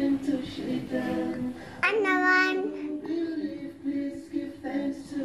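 A children's Islamic song (nasheed) sung by a child's voice in slow, held notes, with a sudden higher, brighter note about two seconds in.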